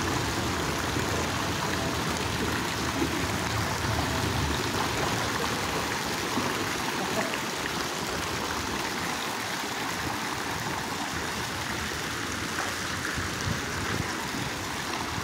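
Steady splashing of many small fountain jets arcing water into a swimming pool.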